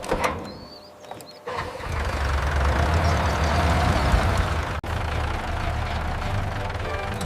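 Tractor engine starting about a second and a half in, then running steadily with a deep hum.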